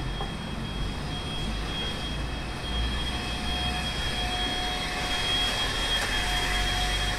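Street traffic running steadily, with a low rumble and a thin, steady high-pitched whine over it; it grows a little louder about three seconds in.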